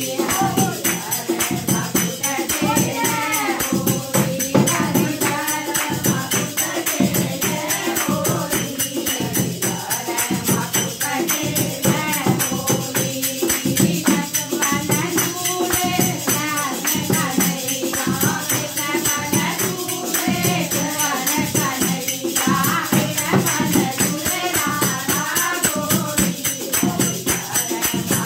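A group of women singing a Kumaoni Holi song together. Hand clapping and a dholak drum keep a steady beat under the voices.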